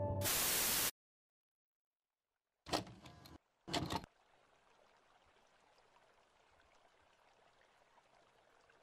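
A short burst of hiss like tape static, then silence, then a videocassette going into a VCR: two short mechanical clunks with a brief whir of the loading mechanism about three and four seconds in, followed by faint hiss.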